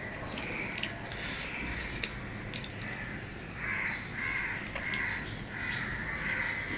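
Crows cawing repeatedly, a quick run of short caws from about three and a half to six and a half seconds in, with a few sharp wet clicks of eating with the hand.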